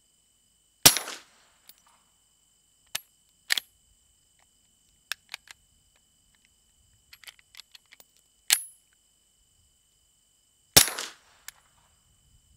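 Suppressed 9mm pistol shots through a lightweight AB Suppressors F4L can, three of them, about a second in, past eight seconds and near eleven seconds. Between them come sharp metallic clicks of the slide being worked by hand: the pistol is not cycling on its own, which the shooter puts down to too much weight on the muzzle.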